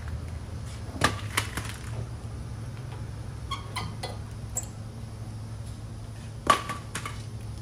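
Scattered sharp metal clinks and knocks of tools and brake parts being handled during a brake pad change, the loudest about six and a half seconds in, over a steady low hum.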